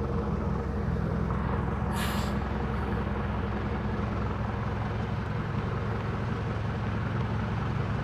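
Bus diesel engines idling steadily, with a short hiss of released air from the air brakes about two seconds in.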